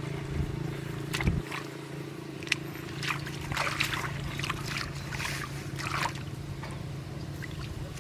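Irregular splashing and sloshing in shallow water over a steady low motor hum.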